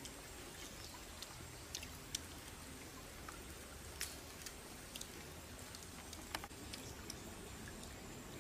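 Faint, scattered crackles and clicks of the charred skin of a stick-roasted fish being pulled apart by hand.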